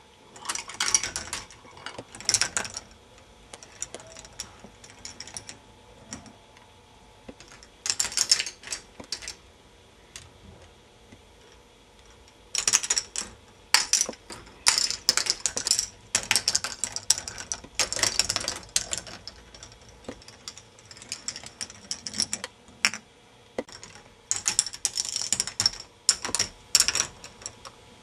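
K'nex ball machine running: plastic balls clattering along and dropping through the plastic tracks in irregular bursts of rapid clicks and rattles, with quieter gaps between.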